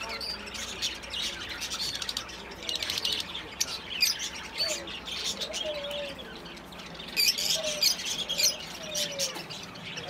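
A crowd of caged budgerigars and lovebirds chirping and chattering together, a dense run of quick, high chirps.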